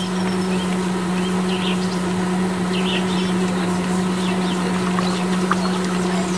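Small DC motor of a miniature homemade juicer running at a steady pitch, spinning its blade through pomegranate pieces and juice. Birds chirp now and then in the background.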